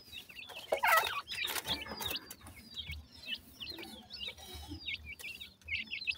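A group of francolin chicks peeping and chirping with rapid, short, high calls while they feed. About a second in there is a louder, lower call with rustling.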